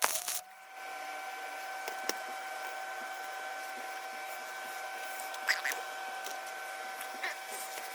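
A crackling burst with sharp ticks cuts off just after the start; then a steady motor hum with a few faint clicks.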